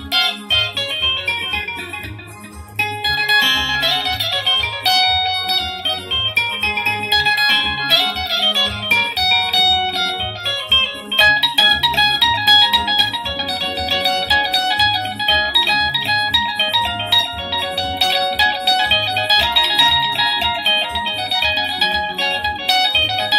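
Soukous-style jam: an electric guitar picks quick, bright melodic runs over a digital keyboard playing chords and a pulsing bass line. The music eases off briefly about two seconds in, then picks up again.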